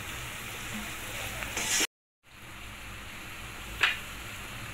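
Chopped cabbage, carrot and capsicum sizzling as they fry in hot oil with chicken and egg, a steady hiss. The sound cuts out for a moment about two seconds in and resumes, and there is one short sharp knock near the end.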